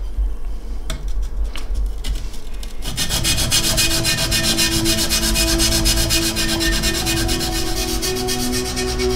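A steel katana blade rubbed back and forth on a wet whetstone, a gritty scraping that becomes loud and continuous about three seconds in. A steady low drone of several tones runs beneath it from the same point.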